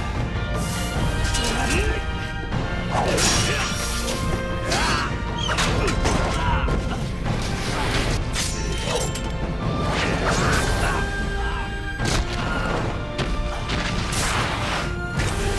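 Sword-fight sound effects from an animated battle: a rapid series of sharp impacts and crashes, some with sweeping swishes, over dramatic background music.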